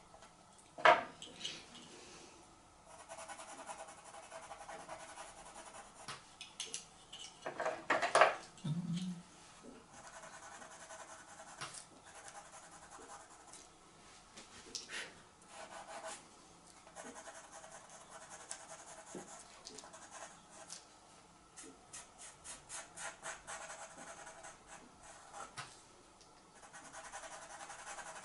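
Pastel stick and pastel pencil scratching and rubbing across Pastelmat paper in stretches of short strokes, with sharp knocks about a second in and a louder clatter around eight seconds in.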